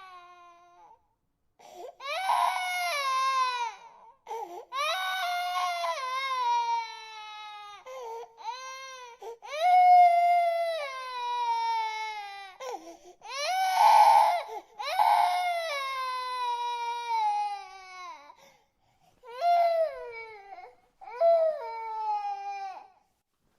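A baby crying: a run of wailing cries, each falling in pitch and broken by short gasps for breath. The loudest cries come a little under halfway through and again just past the middle.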